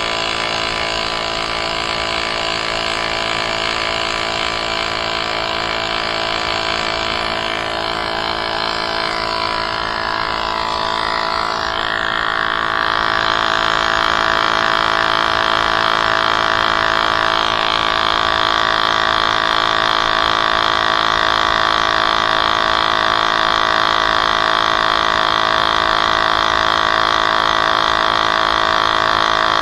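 Electric air compressor running steadily, inflating the e-bike's rear tyre. Its tone shifts and gets a little louder about twelve seconds in.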